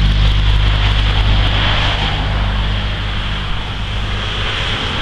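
Traffic going by on a busy highway: a vehicle's low engine hum that fades out about four and a half seconds in, over steady road noise.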